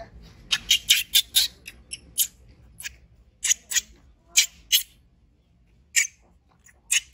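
Baby monkey giving short, shrill squeaks while being bathed: a quick run of them about half a second in, then single squeaks and pairs every second or so.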